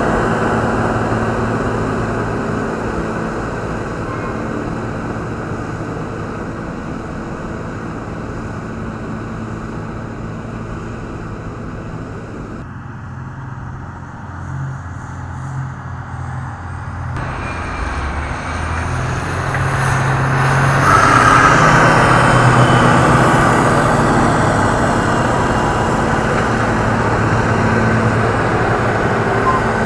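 Diesel engines of Caterpillar wheel-tractor scrapers driving past. One pulls away and fades over the first dozen seconds, and the sound drops low for a few seconds. Then another comes closer with a rising high whine, is loudest a little after twenty seconds in, and runs on heavily as it passes.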